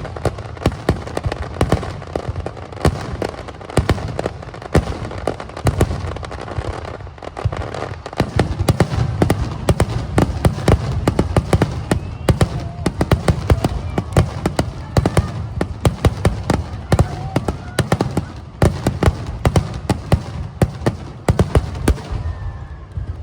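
Fireworks display: a dense, continuous barrage of bangs and crackling bursts, easing briefly about seven seconds in and again near the end.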